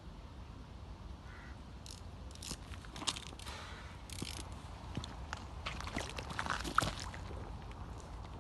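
Crinkly rustling and scattered sharp clicks that start about two seconds in, irregular and loudest near the middle and end, over a low steady rumble.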